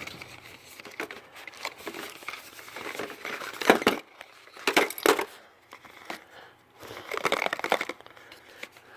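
Packaging rustling and crinkling as a small box of installation tools is opened and its contents handled, in uneven bursts, the loudest a little under four seconds in and about five seconds in.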